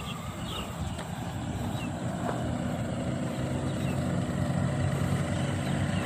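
Paramotor's engine and propeller running steadily as the powered paraglider flies in low, growing gradually louder as it approaches.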